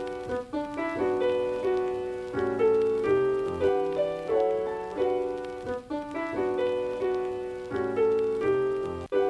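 Background instrumental music: a piano melody of notes struck and fading in a repeating pattern.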